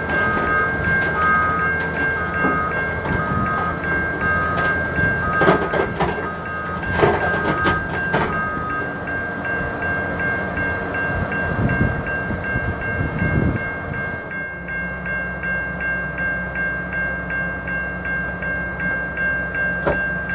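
An excavator's diesel engine running under load with a steady high whine, while an alarm beeps about twice a second until about nine seconds in. There are several metal clanks around six to eight seconds, and the engine note settles lower and steadier about fourteen seconds in.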